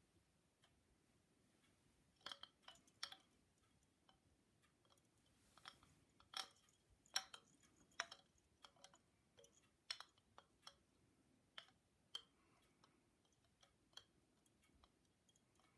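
Hanging bamboo wind chime, its hollow bamboo tubes knocking together softly in irregular, scattered light clacks, some coming in quick pairs or small clusters.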